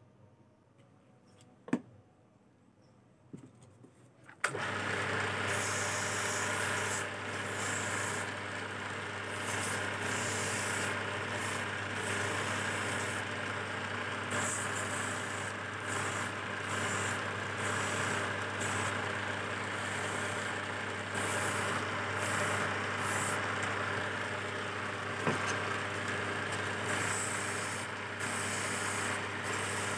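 A few light clinks and knocks as turned teak chess pieces are handled, then a belt-driven wood lathe starts suddenly about four and a half seconds in and runs steadily with a low hum. A hand-held chisel cuts the spinning teak piece, and its scraping comes and goes.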